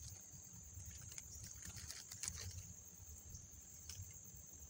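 Steady high-pitched chirring of insects such as crickets, over a low rumble of wind, with a few faint clicks, the loudest just past two seconds in.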